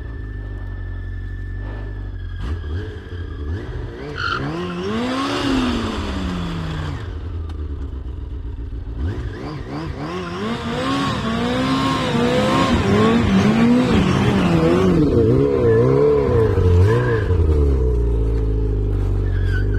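Off-road vehicle engine revving hard in repeated surges, its pitch rising and falling, with a loud hiss over it, as it struggles to cross a stream. It idles between bursts, about seven seconds in and again near the end.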